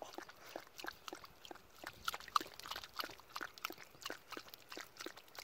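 A small terrier lapping water from the mouth of a hand-held plastic water bottle: a quick, uneven run of soft wet clicks, several a second.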